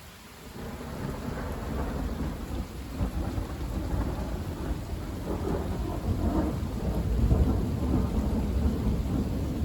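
Thunder rolling in about half a second in and rumbling on, swelling a couple of seconds before the end and still going, over steady rain.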